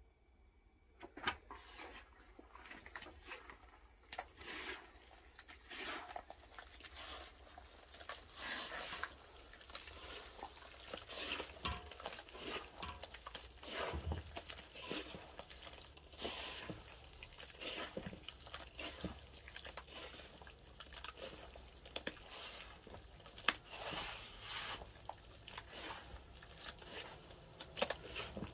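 Hands kneading and squeezing a damp powdery mix in a metal basin, starting about a second in: a quick, irregular run of soft scraping and squeezing sounds.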